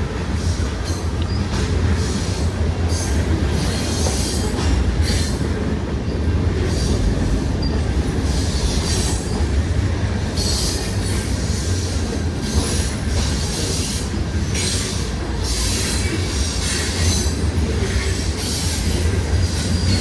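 Freight train cars rolling past with a steady low rumble, while high-pitched wheel squeal and screech from the wheels on the rails comes and goes every second or so.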